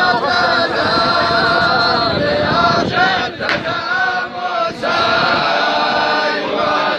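A group of men chanting a religious praise song for the Prophet in unison, with no instruments. They hold long notes, with short breaks for breath about three seconds in and again near five seconds.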